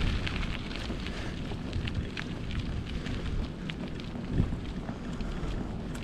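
Strong wind buffeting the microphone in a steady low rumble, with scattered short crackling ticks and one brief low bump about four seconds in.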